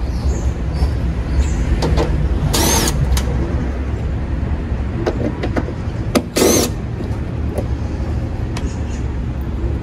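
Cordless drill run in two short bursts a few seconds apart, each a motor whine that spins up and winds down, driving out fasteners at the car's windshield cowl. A steady low rumble sits underneath, with a few light clicks of tool handling.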